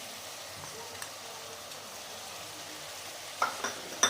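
Chicken pieces frying in oil with masala in a pan: a steady sizzle, with a few sharp clicks near the end.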